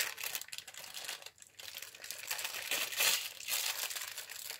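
Disposable plastic piping bag filled with custard crinkling and rustling as it is handled, an irregular crackle that is loudest about three seconds in.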